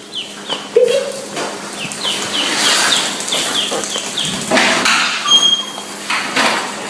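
A small animal's rapid series of short, high, falling chirps, two or three a second, over rustling and scuffling, with one lower call about a second in.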